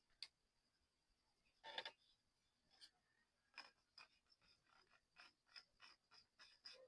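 Near silence with faint handling noises: scattered light clicks and taps, a short scratchy scrape just under two seconds in, and a quicker run of small clicks in the second half, over a faint steady high whine.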